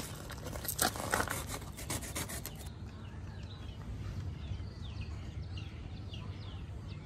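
Cardboard packaging scraping and rustling as it is pulled off a solar panel, several short strokes in the first couple of seconds. After that it goes quieter, with faint short bird chirps.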